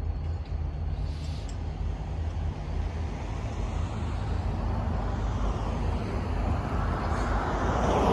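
Low, steady diesel rumble of EMD GP39-2 locomotives, whose turbocharged twelve-cylinder engines sit waiting on the line. Road traffic noise swells near the end.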